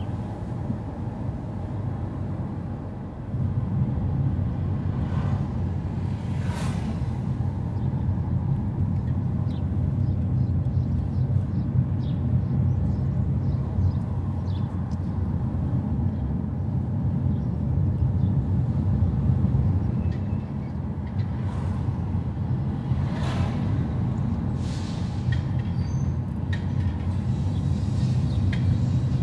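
Car on the move: a steady low engine and road rumble that gets louder about three seconds in, with a few brief swishes over it.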